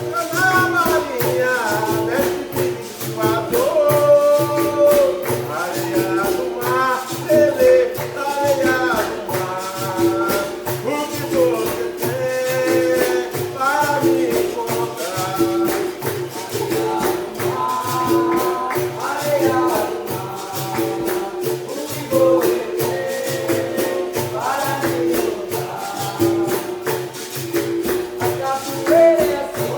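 Capoeira roda music: a berimbau and pandeiro keep up a steady rhythm under a sung call-and-response song.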